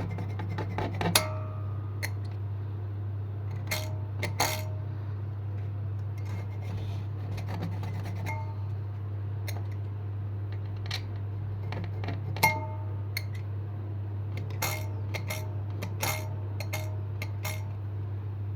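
Scattered light metallic clinks and taps of small metal tools and parts being handled, about a dozen, some with a brief ringing tone, over a steady low electrical hum.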